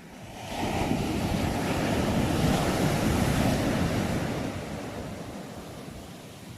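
An ocean wave breaking: a rush of surf that swells up suddenly about half a second in, stays loud for a few seconds, then slowly washes back and fades.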